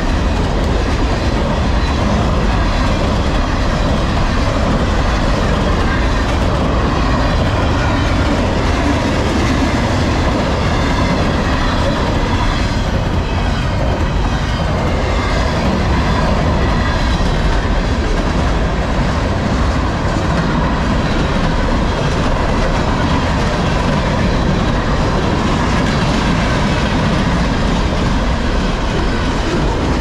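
Freight train cars rolling past at about 49 mph: a steady, loud rumble and clatter of steel wheels on the rails.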